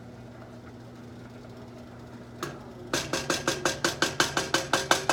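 A metal utensil beating rapidly against a metal cooking pot, about six ringing strikes a second, starting about three seconds in after a single click. A steady low hum runs underneath.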